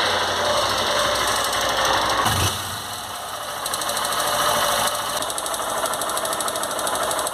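Honda 160's single-cylinder air-cooled engine idling with a valve-train tick. The valves are adjusted, so the owner puts the noise down to side play in the rocker arms, a chronic fault of the 160.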